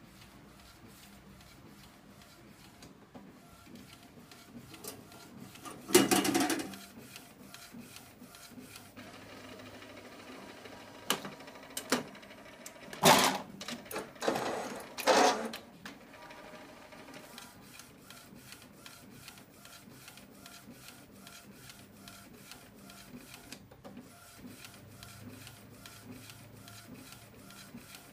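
ACP-PRO inkjet CD and ID card printer running: a steady run of fast, even ticks from the print carriage shuttling across the card tray. Several louder mechanical clatters and whirs come in the middle.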